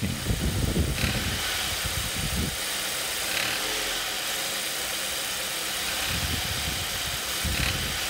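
Ford Duratec HE four-cylinder engine running with a rapid knocking rattle, strong for the first two and a half seconds or so, easing off, then returning about six seconds in. The knock comes only at certain revs and loads and is traced to the accessory-belt pulleys, not the engine internals.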